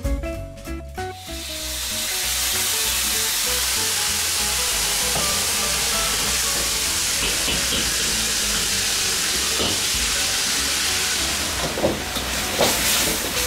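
Food frying hard in a wok over a high flame: a loud steady sizzle that comes up about a second in, with a few sharp knocks of the ladle against the wok near the end. Background music underneath.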